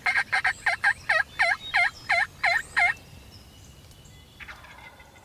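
Wild turkey yelping: a loud run of about ten quick, evenly spaced yelps over roughly three seconds.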